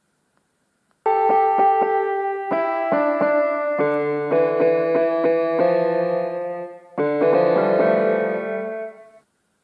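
Synthesized piano notes from a MIUI piano app on a smartphone, tapped one after another. The run starts about a second in with quickly repeated notes, moves through changing pitches, breaks off briefly about seven seconds in, then resumes and dies away near the end.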